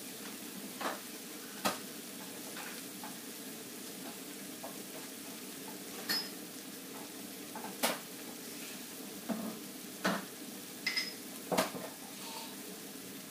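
Chopped green chillies frying in a large black wok, a steady sizzle, with a metal spatula clinking against the wok every second or few.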